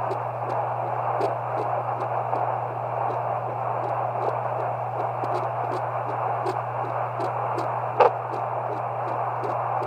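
Fetal heartbeat through a home fetal doppler's speaker: a fast, even pulse of more than two beats a second over steady static hiss and hum. A sharp pop about eight seconds in.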